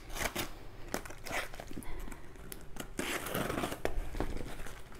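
Packaging being handled: crinkling and rustling, with scattered light knocks as products are taken out of a box.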